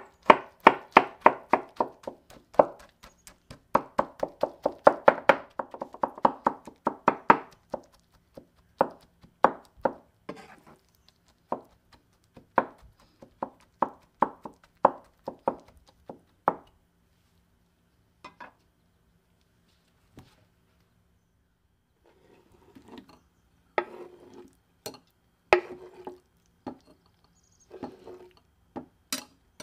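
Chef's knife chopping soft roasted eggplant on a wooden cutting board: a fast run of chops, then slower, spaced strokes. After a pause, a few ringing knocks near the end as the eggplant is moved into a metal sieve.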